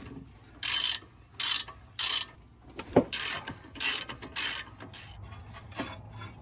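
Hand ratchet backing out an 18 mm brake caliper bracket bolt: six quick bursts of ratchet clicking, one for each swing of the handle, with a single sharp knock about three seconds in.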